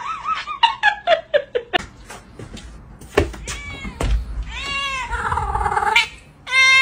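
Cats meowing: a quick run of short falling calls in the first two seconds, then several separate longer meows, one of them long and drawn out past the middle, with a loud one near the end.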